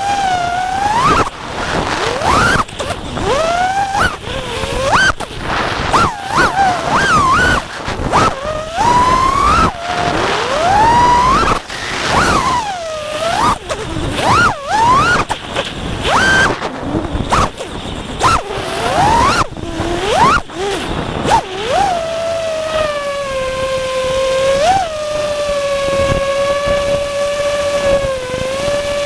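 Brushless motors of a home-built FPV quadcopter whining in flight, the pitch swooping up and down quickly with throttle changes, then holding at one steady pitch for the last several seconds.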